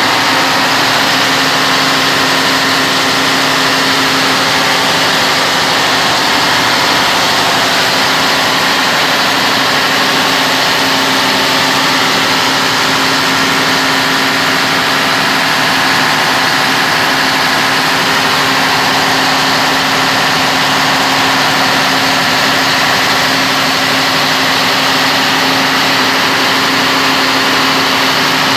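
Large 250 kVA diesel generator running steadily at constant speed, a loud even engine hum with a fixed pitch throughout. The uploader presents this sound as a problem with the generator.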